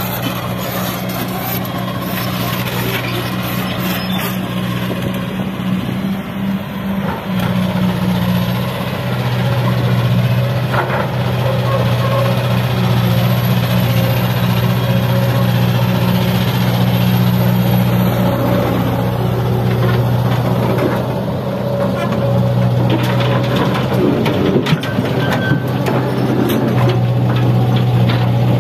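Diesel engines of a working excavator and dump truck running with a steady heavy drone, with scattered knocks and clanks in the last third.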